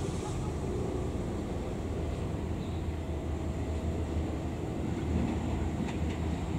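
Prambanan Ekspres diesel multiple unit approaching slowly: a steady low engine drone, with a few light clicks near the end.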